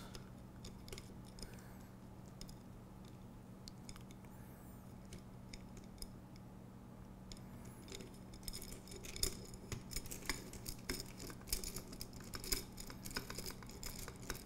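Light metallic clicks and rattles as aluminium extrusion, brackets and small hardware are handled and fitted together on a robot drive rail. The clicks are sparse at first and get busier from about halfway, over a low steady hum.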